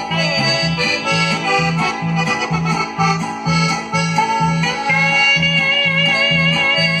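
Instrumental break of a Mexican regional song: an accordion melody over a steady bass pulse about twice a second. Near the five-second mark the accordion settles into a held, wavering chord.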